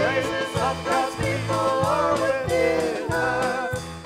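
Worship song with instruments: a singing voice with vibrato over bass notes and a steady beat.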